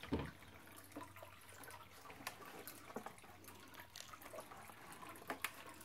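Faint handling noise as a wall clock is picked up: a soft low thump at the start, then scattered light clicks and taps, over a steady low hum.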